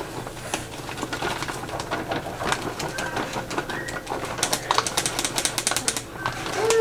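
Plastic bag of shredded mozzarella crinkling as it is handled and cheese is pinched out and sprinkled, with the densest rustling about four and a half to six seconds in.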